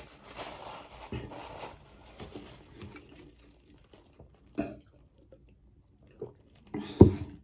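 Paper napkin rustling, then quiet gulps of water from an insulated tumbler. A short, sharp, louder sound comes near the end.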